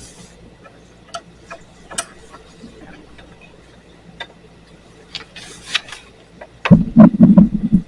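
Steel fence turnbuckle being backed out by hand with a tool, giving scattered light metal clicks and clinks. Near the end comes a loud burst of low rumbling knocks.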